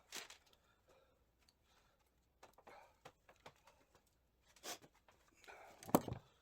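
Light clicks and taps of metal gearbox parts and tools being handled while a Triumph TR6 gearbox is dismantled, with a heavier clunk near the end as a part is knocked or dropped inside the case.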